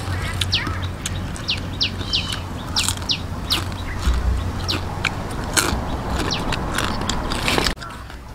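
Small bird chirping over and over in short falling whistles, several a second, over the crackle of crispy fried crab shells being picked at on a metal tray and a steady low hum. The sound drops away suddenly near the end.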